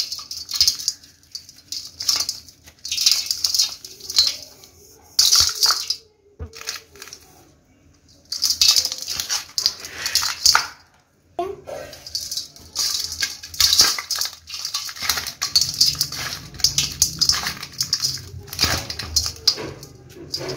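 Dry dirt clods crushed and crumbled by hand in a perforated metal bowl: a gritty crackling with powder sifting and pattering onto the metal, coming in bursts with short pauses.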